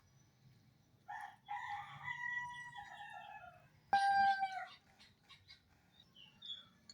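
A rooster crowing: one long held crow starting about a second in, then a louder, shorter call near the middle.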